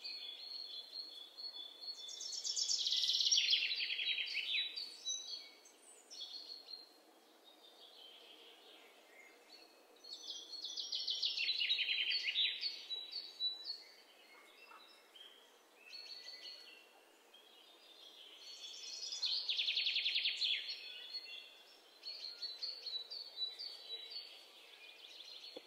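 A songbird singing a fast, descending trill that lasts two to three seconds, given three times about eight seconds apart, with softer high chirps in between.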